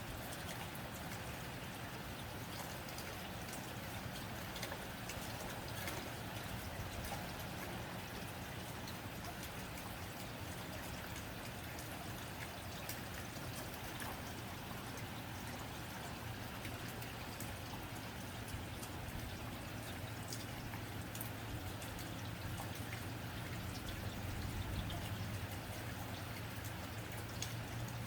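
Steady rain on a tin roof: an even hiss with scattered sharp drop ticks, over a low steady hum.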